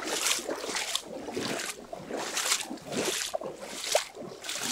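Splashing, sloshing footsteps of a person wading in rubber waders through a shallow, muddy channel. There is roughly one step every two-thirds of a second.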